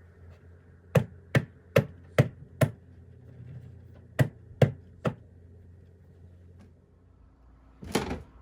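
Sharp knocks of a kitchen utensil striking food or a board: five in quick succession, then three more, and a short rattling scrape near the end.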